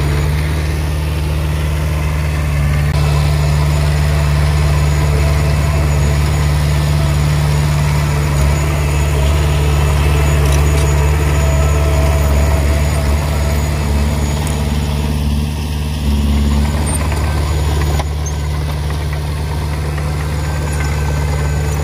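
Komatsu D20P crawler dozer's diesel engine running as the dozer pushes and spreads broken rock and soil, a steady low drone with small dips in level midway and near the end.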